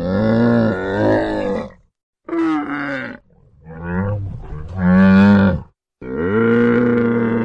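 Camel calling: a series of long, loud pitched calls broken by short silences, the last one held steady from about six seconds in.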